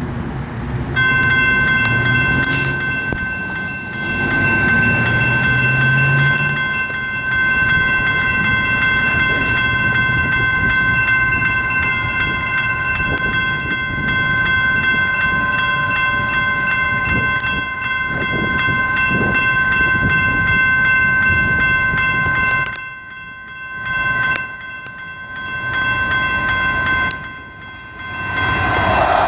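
Electronic railroad crossing bells ringing steadily as the crossing signals are activated, heard as a cluster of high ringing tones that start about a second in. Road traffic noise runs underneath.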